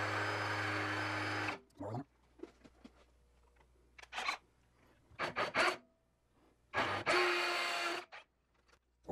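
Power drill boring through a brass sleeve; the motor runs steadily, then stops about a second and a half in. Afterwards come a few short bursts of noise and clicks.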